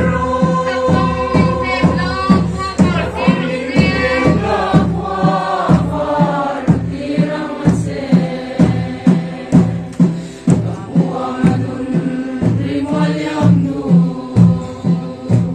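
A group of voices singing together over a steady drum beat, about two beats a second.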